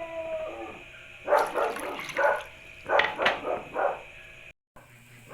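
A dog barking, about six short barks in two or three quick groups.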